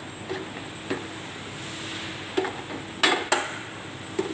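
Knocks and clunks of a Philips HD9270 XL air fryer's plastic basket drawer and handle as it is handled and turned over. There are a few sharp knocks, the loudest two close together about three seconds in, over a steady low hum.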